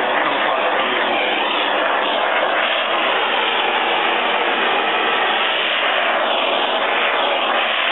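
Gas torch flame hissing steadily as soldered joints of a brass tuba are heated to free the bell and bottom bow.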